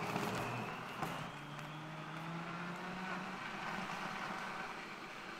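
Blender running, its motor churning ice, strawberries, bananas and milk into a frappuccino: a steady whirring hum, with a brief click about a second in.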